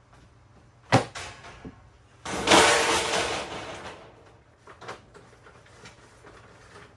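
Off-camera handling noises in a shop: a sharp knock about a second in, then a louder scraping rattle that lasts about a second and a half and fades, with a few small clicks after.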